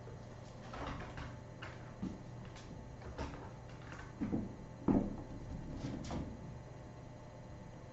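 Scattered clicks, knocks and rattles from a plastic ball-track tower cat toy as a kitten stands on it and bats at the balls, with two louder knocks about four and five seconds in. A steady low hum runs underneath.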